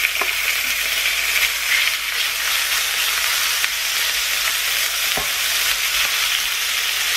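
Diced raw chicken sizzling steadily in hot oil in a cast-iron skillet as it is stirred with metal tongs, with a couple of short clicks of the tongs against the pan.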